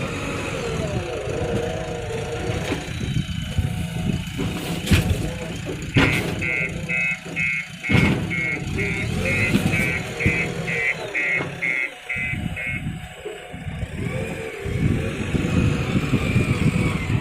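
JCB 3DX backhoe loader's diesel engine working, with a few sharp knocks. For several seconds in the middle a high beeping repeats about three times a second, like a reversing alarm.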